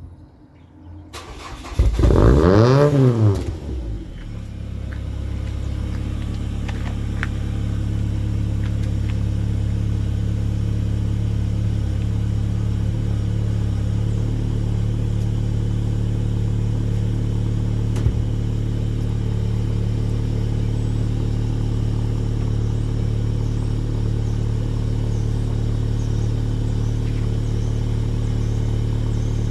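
Mk3 Ford Mondeo engine starting, flaring briefly in revs about two seconds in, then settling into a steady idle through its JP stainless exhaust.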